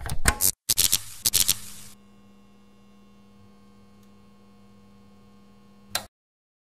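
Production-logo sound effect: several loud bursts of noise over the first two seconds, then a steady electrical hum for about four seconds, cut off by a short burst near the end.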